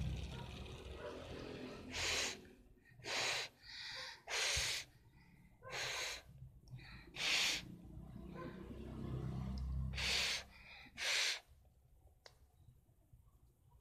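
A child blowing a series of short puffs of breath onto a small plastic toy fan to make its blades spin.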